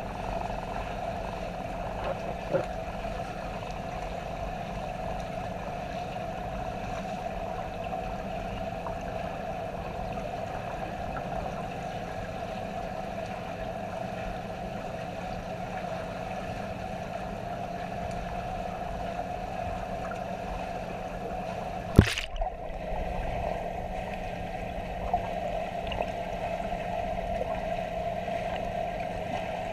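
Underwater sound of a swimming pool heard through a camera housing: a steady hum over a muffled water noise, with a sharp knock about 22 seconds in and a few faint clicks.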